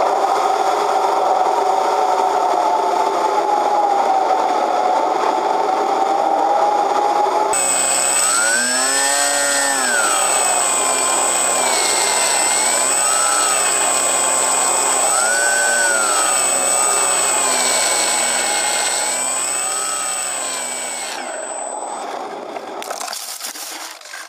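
Electric motor and propeller of an Easyglider Pro RC glider, heard through its onboard camera: a steady drone, then after a cut about seven seconds in, a pitched motor note that rises and falls repeatedly as the throttle changes, with a steady high whine over it. The motor fades out near the end, followed by a brief rustling noise as the glider comes down in the grass.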